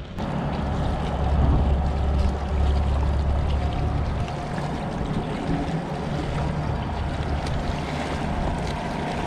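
Wind buffeting the microphone, heaviest in the first few seconds, over small waves washing and splashing against shoreline rocks.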